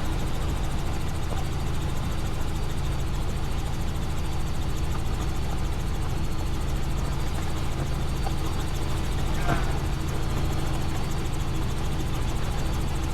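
Helicopter engine and rotor running steadily in flight, heard from inside the cabin as an even low drone with a faint high whine.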